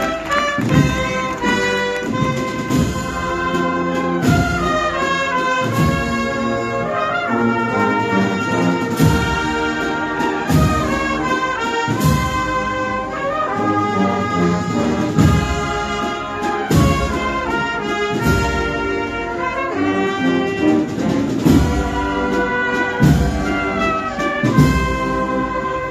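Processional brass-and-drum band (agrupación musical) playing a slow march: trumpets and trombones carry a sustained melody over a heavy drum beat about every second and a half.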